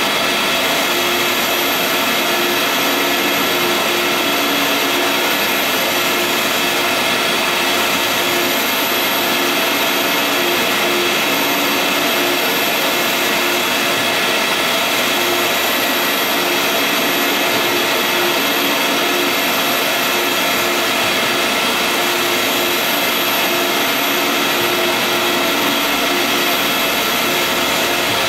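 Vutek UV-curing flatbed printer running while printing onto rigid sheets: a steady machine whir with several constant high tones over a hiss.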